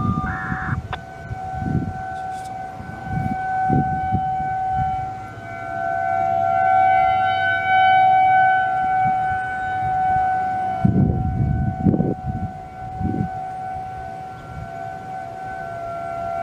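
Federal Signal 2001-SRN outdoor warning sirens sounding a steady alert tone, one held pitch with a higher overtone, swelling and fading in loudness as the sirens rotate. Low rumbles sit underneath.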